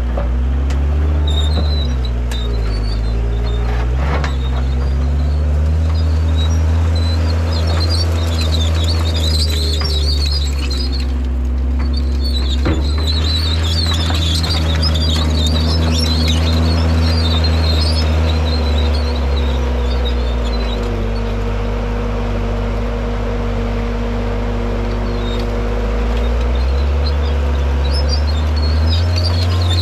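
John Deere 326D skid steer's diesel engine running under load while it pushes and spreads fill dirt. The engine note dips and recovers a few times as the machine works.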